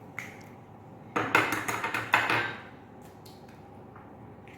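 Eggs being cracked against the rim of a bowl: a quick run of sharp taps and cracks starting about a second in and lasting just over a second.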